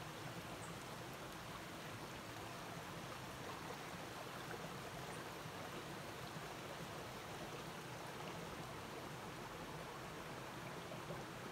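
A small rocky stream running steadily: a faint, even rush of water.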